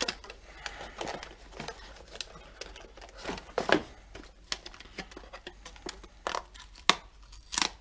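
Cardboard box of piston rings being opened and its paper and plastic wrapping handled: rustling and crinkling, with a few louder sharp crackles about halfway through and near the end.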